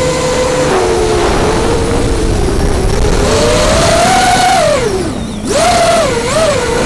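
FPV racing quadcopter's brushless motors and Dalprop propellers whining, the pitch rising and falling with the throttle. About five seconds in the pitch drops sharply and the sound dips as the throttle is cut, then it climbs back with a few quick wobbles.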